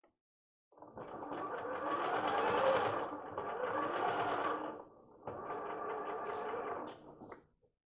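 Bernette b38 computerized sewing machine stitching lace fabric: it starts about a second in, runs for about four seconds, slows briefly, then stitches for about two seconds more and stops near the end.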